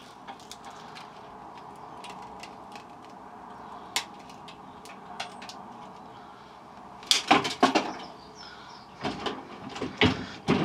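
Metal clanking and rattling at a bench vice, starting about seven seconds in and coming again near the end, with a brief squeak among the knocks; light ticks before that. The squeak points to the vice's dry screw, which needs a bit of lubrication.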